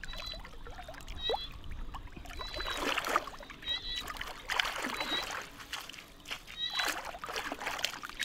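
Hands sloshing and splashing through shallow muddy water at the mouth of a mesh fish net, in several swooshes. Throughout, a short high chirp repeats about once a second in the background.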